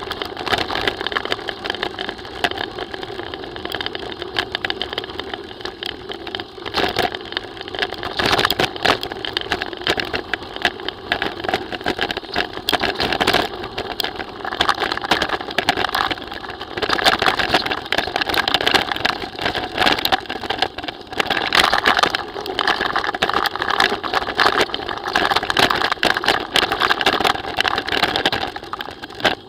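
Mountain bike riding down a rough gravel track: tyres crunching over the stones and the bike and camera mount rattling continuously with the bumps.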